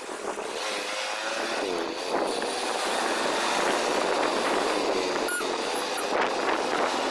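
A vehicle engine running on the move, its pitch rising and falling repeatedly over a steady rushing noise.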